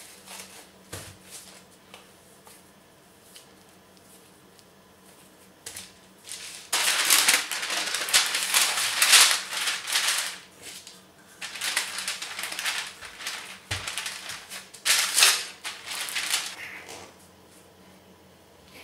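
Baking parchment paper crinkling and rustling as it is handled and pressed over cookie dough. After a quiet first third, two long stretches of crackly rustling follow, with a short pause between them.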